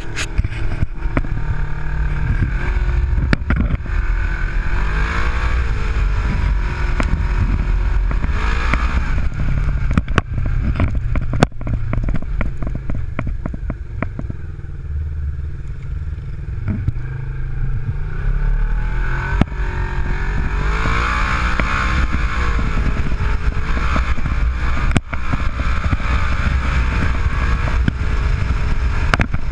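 Side-by-side UTV driving over a rough trail: the engine runs steadily and revs up and down a couple of times, with frequent clattering knocks from the chassis over bumps.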